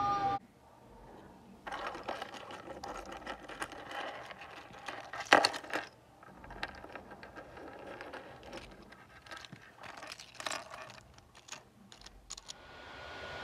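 Articulated 3D-printed plastic figure being handled and flexed on a wooden table: irregular clicking and rattling of its jointed plastic segments, with one sharp click about five seconds in. It opens with a brief whir of the 3D printer's stepper motors, which cuts off.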